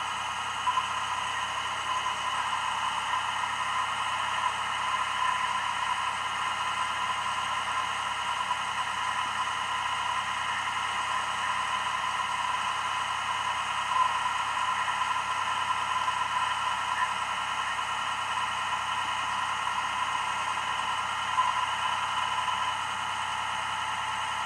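A steady high whine over a faint low hum.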